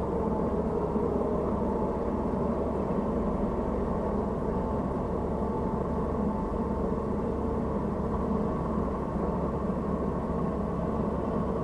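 Steady low rumble of road traffic on the elevated toll road overhead, with a faint droning hum and no sudden events.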